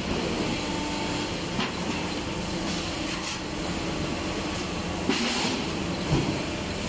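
Steady running noise of hydraulic sink-pressing machinery on a stainless steel sink production floor, with a few sharp metallic knocks and clanks from stainless steel sink pressings being handled, the loudest about five seconds in.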